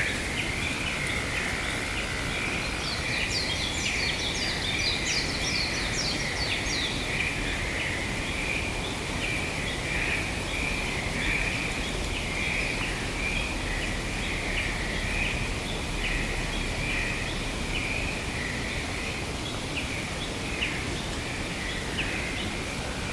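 Forest ambience: a steady, pulsing frog chorus over an even, wind-like hiss, with a run of rapid, high bird chirps during the first seven seconds or so.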